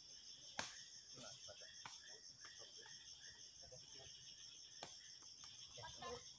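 Steady insect chorus, a high shrill ringing, with a few sharp knocks of a sepak takraw ball being kicked, the loudest about half a second in.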